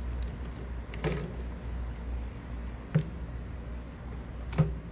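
Light clicks and taps of small phone parts and tools handled during a phone repair: a short cluster about a second in, then two single sharp clicks, one near the middle and one near the end, over a low steady hum.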